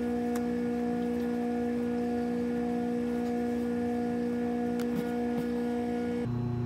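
Background music: a held chord of steady tones that changes abruptly to a lower chord about six seconds in, with a few faint ticks.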